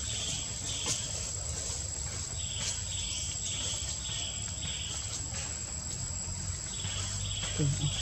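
Insects chirping in runs of short repeated chirps, about two a second, over a constant thin high whine. A brief low voice sounds near the end.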